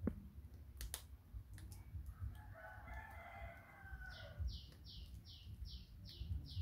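A rooster crows once in the background, one long crow from about two to four seconds in. After that a young macaque screams in a run of high, falling squeals, about two a second. There are a couple of sharp clicks in the first second.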